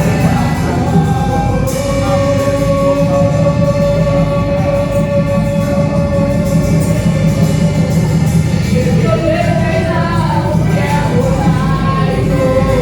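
Church praise music with singing over a band with heavy, steady bass; a long note is held for several seconds in the middle.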